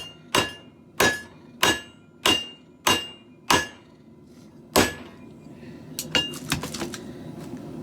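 Hand hammer striking hot steel on an anvil, forging a garden hoe: a steady run of blows about every 0.6 s, each with a short metallic ring. After a pause, one more blow, then a quick run of lighter taps near the end.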